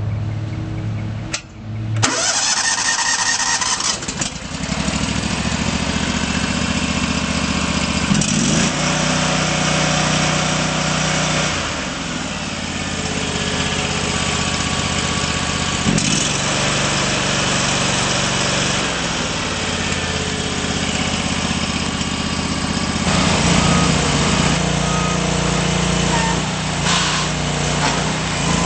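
Terramite T5C backhoe loader engine starting and catching about two seconds in, then running, with its speed and load changing several times.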